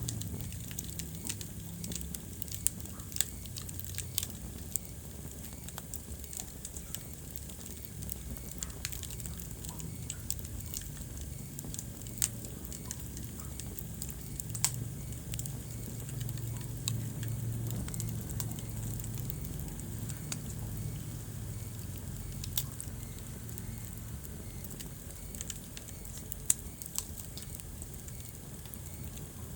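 Wood fire burning in a fireplace: a steady low rumble of flames with constant crackling and scattered sharp pops, a few of them much louder than the rest.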